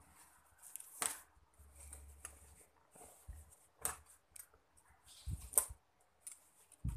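Children's clothes being handled and moved about in a pile, with soft fabric rustling and a few sharp clicks and taps.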